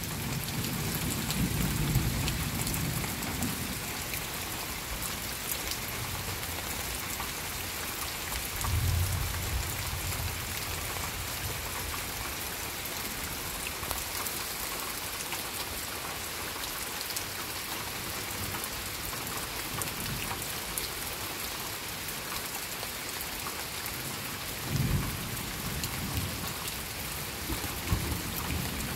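Steady light rain falling on trees and undergrowth, with low rumbles of thunder three times: at the start, about nine seconds in, and again near the end.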